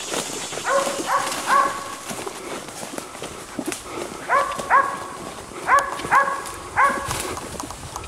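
Hunting bay dog barking ahead, about eight short barks in bunches of three, two and three: the dog baying a wild hog. Footsteps crunch and rustle through brush throughout.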